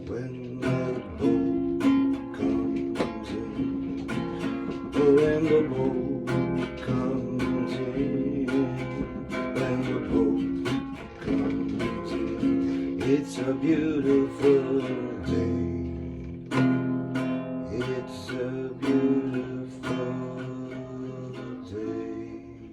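Acoustic guitar strummed and picked through a song's instrumental passage, with regular plucked chords; the playing grows quieter near the end.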